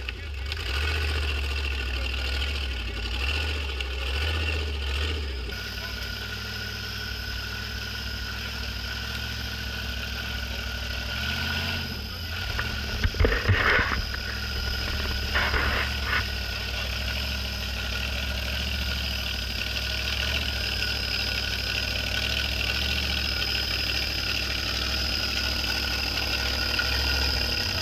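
Off-road vehicle engine running steadily, with a few short louder bursts about halfway through.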